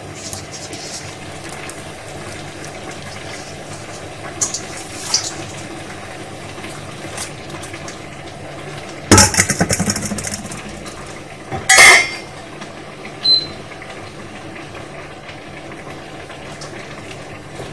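Metal pot lid and utensil clinking against a stainless steel cooking pot: a few light clinks, then two loud clatters with a brief ring, about nine and twelve seconds in, over a steady low hum.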